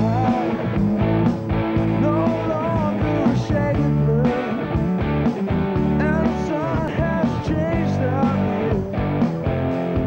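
Background rock music with guitar and a sung melody.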